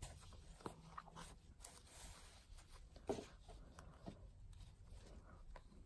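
Faint rustling and small clicks of hands sewing a satin-ribbon flower onto linen in an embroidery hoop, with one slightly louder tap about three seconds in.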